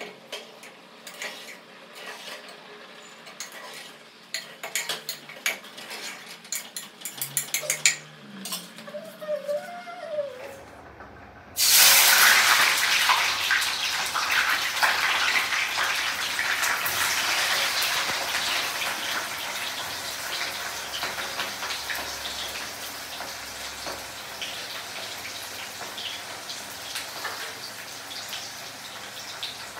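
Kitchen clatter of dishes and utensils, then a little over a third of the way in a tap is turned on and water runs hard in a steady rush that slowly eases off.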